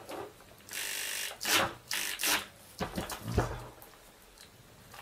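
Draper electric drill's motor and two-speed gearbox run in short trigger bursts: one run of under a second, then three shorter bursts, then a few clicks and a knock as the drill is handled. It is a test run of the rebuilt gearbox, and the repair has not cured the slipping.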